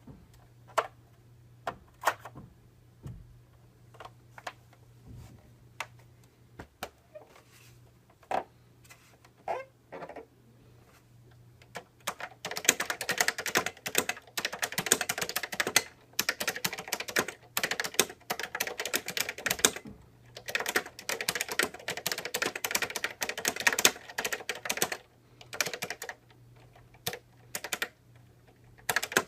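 Epson QX-10 keyboard with Fujitsu second-generation leaf-spring linear switches, dampened on the downstroke by hard rubber stoppers, being typed on. Scattered single keystrokes for the first twelve seconds or so, then fast continuous typing with a brief break about two-thirds of the way in, then a few single keystrokes again near the end.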